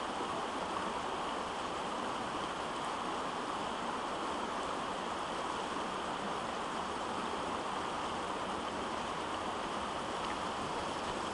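Shallow stream running steadily over a rocky riffle: an even, unbroken wash of water.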